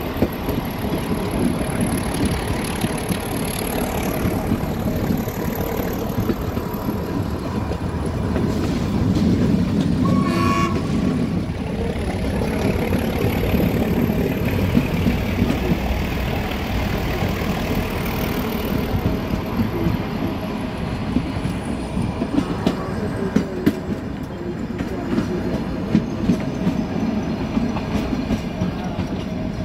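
Nilgiri Mountain Railway passenger train running, heard from an open coach window: a steady rumble and rattle of the coaches, with wheels clicking over rail joints. A brief train horn sounds about ten seconds in.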